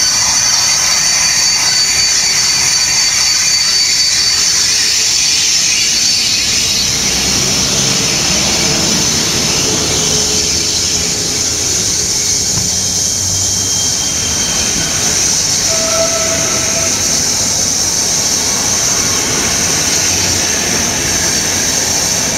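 A Polish PKP EP09 electric locomotive hauling an express train passes close by at a station, followed by its passenger coaches rolling past. There is a steady high hiss and squeal over the wheels' rumble; a thin high tone heard at first fades out after about six seconds.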